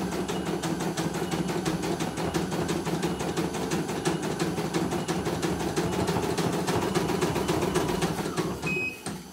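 CNY E900 embroidery machine stitching with a rapid, even needle rhythm. Near the end it stops and gives a short high beep, marking the end of one thread colour so the thread can be changed.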